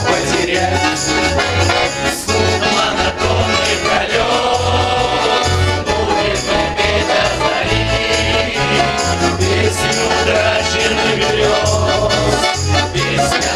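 Pop song music with a steady, regular bass beat and a melody line, likely a passage between sung lines.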